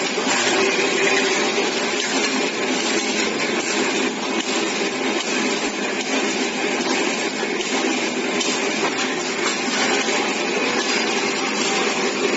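DZB-A500 automatic roll-bag making machine running, a steady mechanical whir with faint clicking through it.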